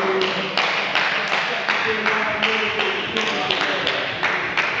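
Steady rhythmic clapping, about three claps a second, with players' voices calling out over it, ringing in the echo of a large sports hall.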